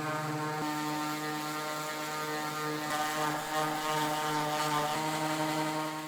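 Electric power tool motor running steadily at constant speed, a steady hum with a high hiss over it. The sound fades out just after the end.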